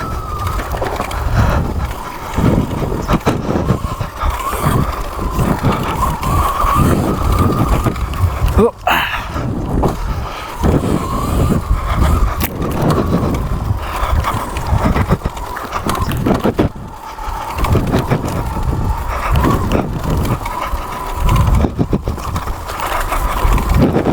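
Sur Ron electric dirt bike running on a stock motor with a 15 kW Bac4000 controller. Its whine rises and falls with the throttle as it is ridden over a bumpy trail. Underneath are wind noise on the microphone and repeated knocks from the rough ground.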